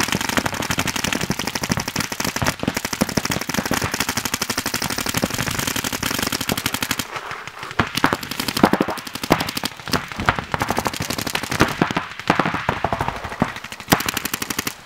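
Paintball markers firing rapid strings of shots, many a second, thinning to more scattered shots about halfway through.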